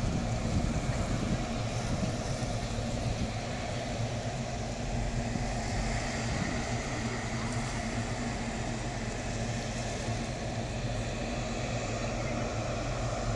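Fred. Olsen Express fast ferry's engines running with a steady low drone as the ship manoeuvres slowly in harbour.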